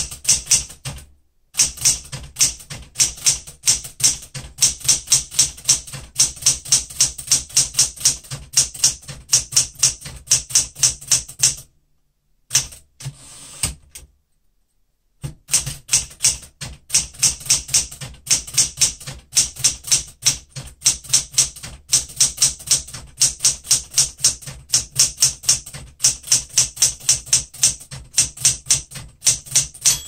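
Smith-Corona Galaxie Deluxe manual typewriter being typed on fast, a quick steady run of crisp keystroke and typebar clacks, with a short break about twelve seconds in. The keys are struck with the touch selector on high pressure, and the machine has been cleaned and lubricated.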